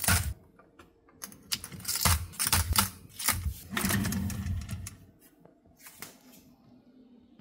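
Chrome wire rotating Nespresso capsule rack spun by hand, the aluminium capsules rattling and clicking in their wire slots as it turns. The clicking dies away about five seconds in.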